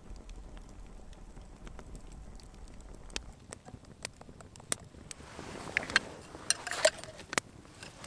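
Wind rumbling on the microphone for the first three seconds, then a campfire crackling, with sharp pops and snaps that grow louder and more frequent over the last few seconds.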